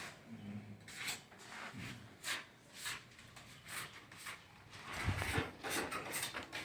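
Scattered light knocks and scuffs in a small, bare room, with a duller thump about five seconds in.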